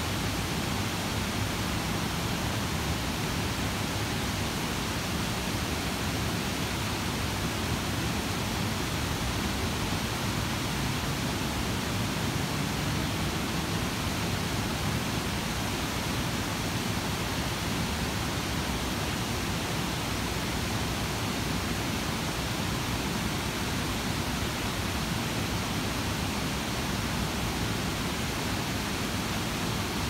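Water cascading down the many tiers of a stepped concrete fountain pool, a steady, unbroken rush of falling and splashing water.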